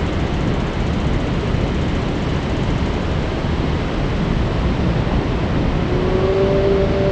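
Breaking ocean waves: a heavy, steady rush of surf with a deep rumble. About six seconds in, a steady humming tone joins in.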